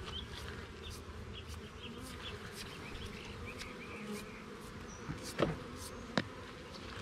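Honeybees buzzing around an open hive, a steady hum. Two sharp knocks come about five and a half and six seconds in, the loudest sounds, typical of hive frames or a hive tool knocking on the wooden box.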